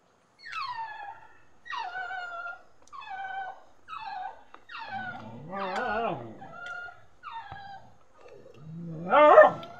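A dog whining over and over: about eight short, high-pitched whines that fall in pitch, a longer wavering whine midway, and a louder rising whine near the end.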